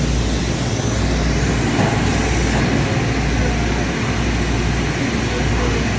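Steady machine-shop background noise: a dense, even hiss with a constant low hum underneath, unchanging throughout.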